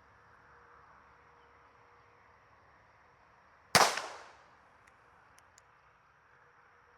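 A single shot from an early-1900s U.S. Revolver Co. revolver in .32 S&W: one sharp crack a little over halfway in, with a short echoing tail, followed by a few faint clicks.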